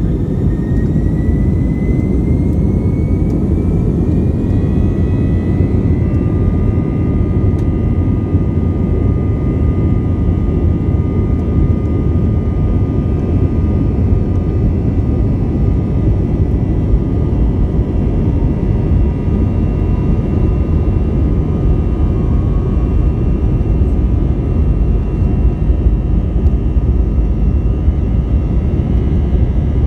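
Airbus A321 jet engines at takeoff thrust during the takeoff roll, heard inside the cabin over the wing: a loud steady rumble with a high whine that rises in pitch over the first six seconds or so as the engines spool up, then holds steady.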